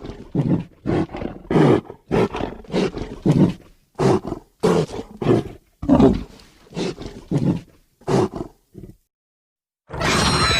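Designed Proceratosaurus dinosaur vocalisation, layered from modified big-cat, crocodilian, pig and other animal calls: a run of short, rough calls in quick succession, about two a second. After a brief pause, a louder shriek with high falling tones begins near the end.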